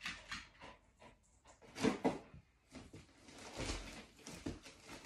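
A dog's claws clicking on a wooden parquet floor as she trots in, then scattered soft knocks and scuffs as she noses at a gift-wrapped cardboard box to open it.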